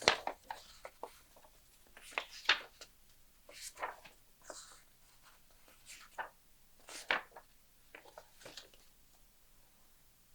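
Irregular handling noises from unboxing a mechanical keyboard: scattered taps, clicks and short rustles of packaging, a few every couple of seconds, with no steady typing rhythm.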